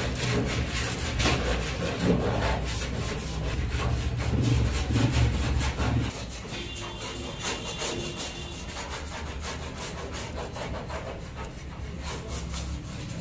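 Repeated scraping and rubbing, with many short clicks, over a low hum that drops off about halfway through.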